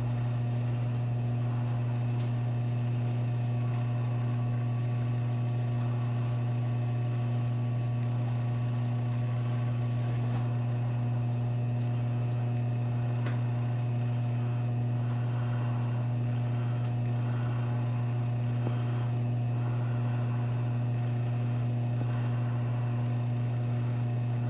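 Steady low electrical hum with no change in level. A faint high whine comes in about four seconds in and cuts off about ten seconds in.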